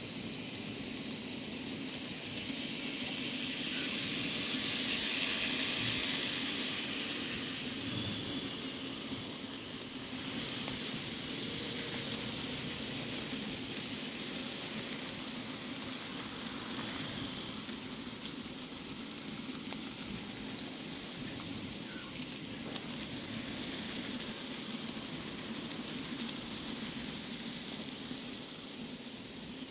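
N scale model trains running on their track: a steady fine rattle of small wheels on rails over a low motor hum, a little louder a few seconds in.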